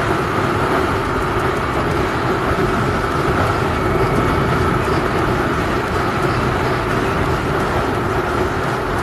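Motorcycle riding at steady cruising speed: the engine's drone mixed with steady wind rush on the microphone.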